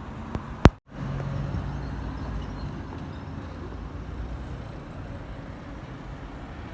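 Steady low rumble of a moving road vehicle, with a sharp click about two-thirds of a second in, followed by a brief dropout.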